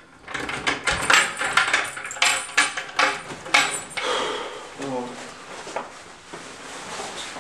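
Metal padlock and keys clicking and rattling as a padlocked locker is unlocked and its door opened, a quick run of sharp clinks over the first four seconds. Then cloth rustling as a jacket is pulled out and put on.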